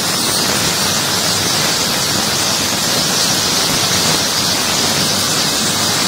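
Ultrasonic dishwasher tank running: a steady high hiss of cavitation in the water.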